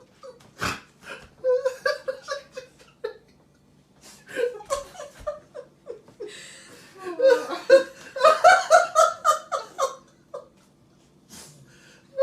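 A person laughing in repeated short bursts, heaviest and loudest about seven to ten seconds in. There is a single sharp knock under a second in.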